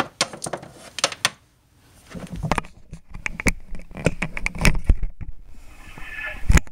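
Handling noise: scattered clicks, taps and low knocks of plastic toy figures and the camera being moved by hand, with a short quiet gap about a second and a half in.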